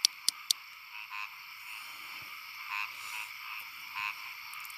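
Frogs calling in a chorus: short pulsed croaks repeating over a steady high background chorus, with three sharp clicks in the first half second.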